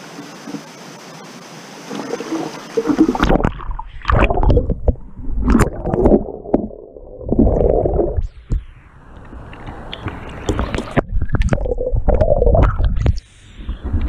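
Water sloshing and gurgling around a camera held under the surface of a pool. About three seconds in, the steady open-air rush of water gives way to muffled, irregular gurgles and surges, and the open-air sound comes back just before the end.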